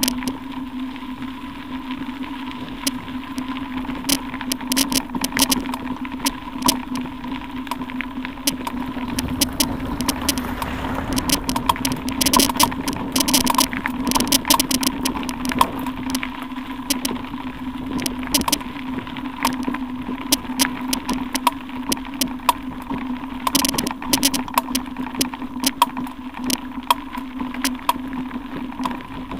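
Bicycle rolling over a loose gravel track, picked up by a camera mounted on the bike: a steady hum with frequent clicks and rattles from the bumps and stones.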